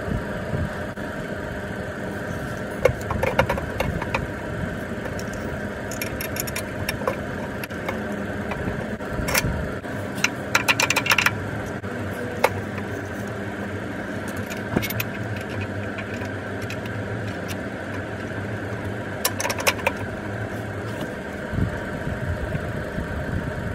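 Several short clusters of metallic clinks and rattles from tools and alternator hardware being handled, over a steady mechanical hum with several held tones.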